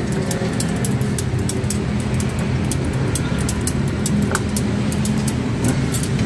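Steady low rumble of motor traffic or an idling engine, with many quick, sharp clicks over it.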